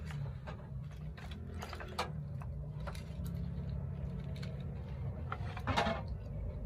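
Scattered knocks and clatter of split firewood sticks and metal cookware being handled at a clay wood stove, with one louder knock near the end, over a steady low hum.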